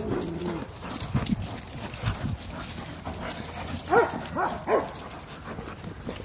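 Rottweiler puppies yipping as they bite and tug at a bite sleeve, with three quick high yips in a row about four seconds in.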